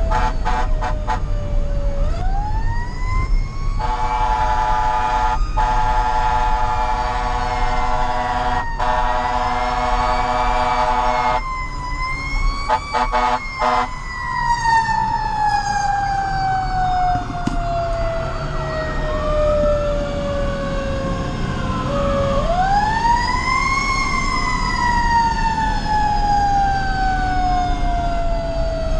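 Fire engine siren wailing up and down, heard from inside the cab, with more than one wail overlapping at times. An air horn blasts for about seven seconds with two brief breaks starting about four seconds in, then sounds a few short blasts.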